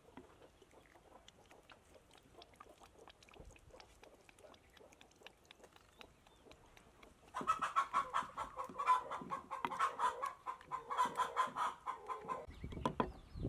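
A chicken clucking in a fast run of pulsing calls that starts about halfway through and lasts about five seconds. Near the end come dull thuds of a wooden pestle pounding in a mortar.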